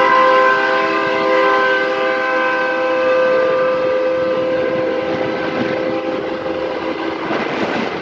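Multi-note air horn sounding one long chord over a rushing noise. The chord slowly weakens and dies away near the end.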